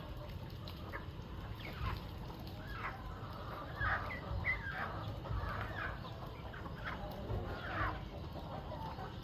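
A flock of chickens clucking, many short, falling calls overlapping from several birds, over a low rumble.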